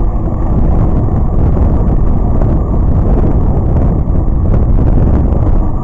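Loud, steady wind buffeting the microphone of a moving camera: a dense low rumble with no distinct events.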